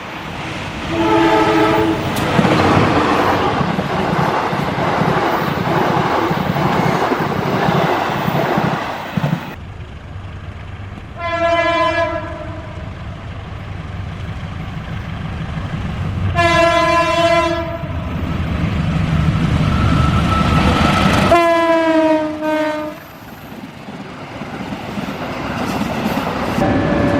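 CC201 diesel locomotive horns sounding four separate blasts, with the rumble and wheel clatter of a passing train between the first two. The last blast drops in pitch as the locomotive goes by.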